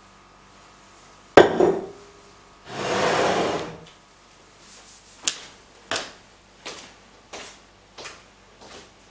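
A sharp knock of a glass beaker set down on a bench, then a whoosh lasting about a second, then short, even ticks at about one every 0.7 seconds.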